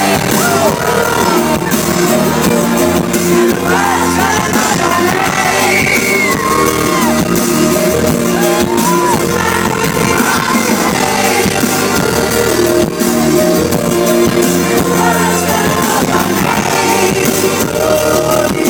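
A pop-rock band playing live with drums and guitar under a male lead vocal, loud and continuous, recorded from within the audience.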